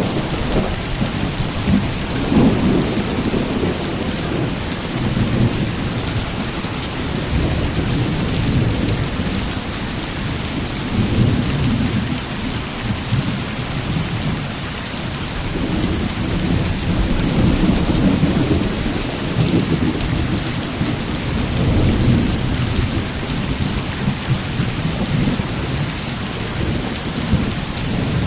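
Heavy rain falling steadily, with rolls of thunder swelling and fading several times.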